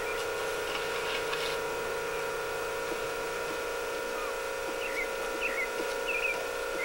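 Steady electrical hum made of several fixed tones, with a few short, faint high chirps between about five and six and a half seconds in.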